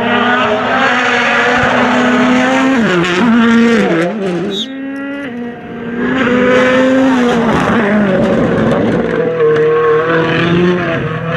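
World Rally Car's 1.6-litre turbocharged four-cylinder engine running at high revs. Its pitch dips and wavers about three seconds in, then climbs again from about six seconds as it accelerates.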